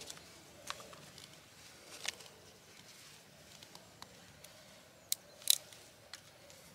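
Knife cutting into a green willow stick, with a few faint scattered clicks and small cracks as short pieces are cut and snapped off. The loudest pair comes about five seconds in.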